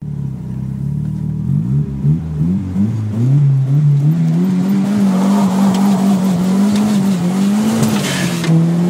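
Third-generation Honda Prelude's 2.0-litre non-VTEC four-cylinder engine running from inside the cabin while being road-tuned. Its pitch climbs in steps over the first few seconds, then holds and wavers as the car drives on. A short burst of hiss comes near the end.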